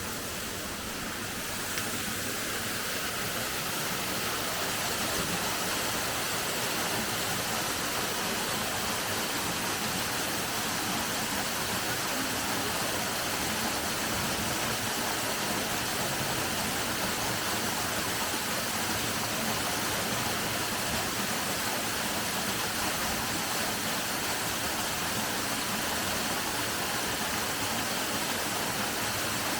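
A waterfall pouring, a steady rush of falling water that swells over the first few seconds, then holds even.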